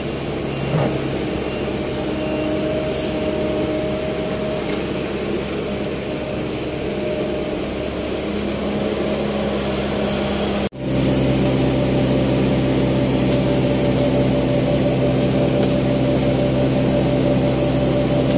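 Sumitomo S265 excavator's diesel engine running steadily under working load as it digs and lifts soil. About halfway through there is a sudden break, after which the engine sounds louder and steadier.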